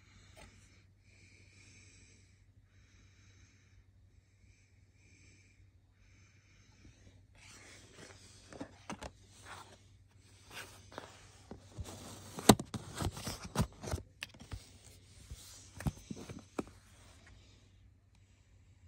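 Faint breathing close to the microphone, then about ten seconds of rustling and sharp clicks as a CD, its booklet and its cardboard digipak case are handled, loudest near the middle.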